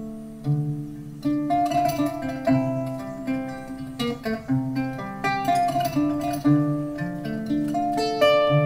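Solo kora, the West African calabash harp-lute, being plucked: single notes ring out and fade, a low repeating bass line under a quicker melody higher up.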